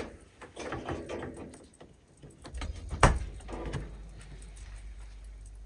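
Rustling of a power cord being handled, then a sharp click about three seconds in as the plug goes into a wall socket. A small refrigerator's compressor then runs with a faint, steady low hum, barely audible.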